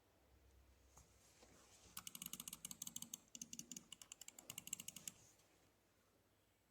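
Faint, rapid clicking of computer keys or mouse buttons, about ten clicks a second in two runs with a short break between them.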